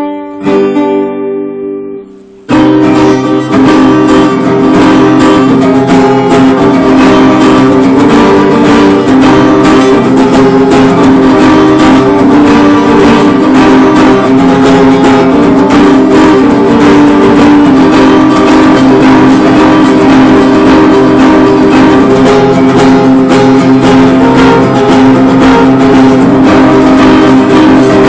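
Guitar played in a Spanish style. A few plucked notes ring out at first, then about two and a half seconds in, loud, fast, continuous strumming begins.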